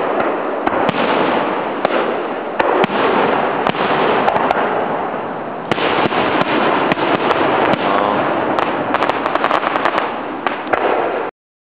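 Aerial fireworks display: shells bursting, heard as many sharp cracks over a steady wash of noise, the cracks thickest toward the end. The sound cuts off suddenly just before the end.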